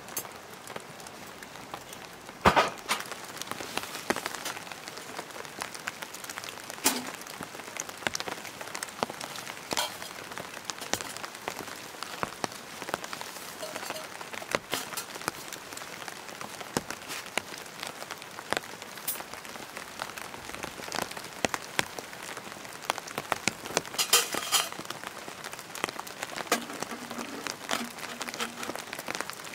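Steady rain pattering on a tent, dotted with small drips. A few sharper knocks and clinks, the loudest about two and a half seconds in and again near the end, as the parts of a Winnerwell metal wood stove and its stovepipe are handled and set up.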